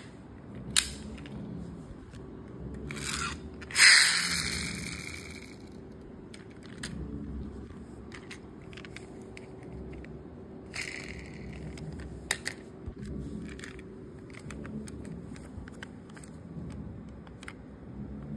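Die-cast 1:38 Kinsmart Chevrolet Camaro pullback police car being handled: sharp clicks and taps near the start, a brief loud scraping rush about four seconds in that fades, then quieter scrapes and taps.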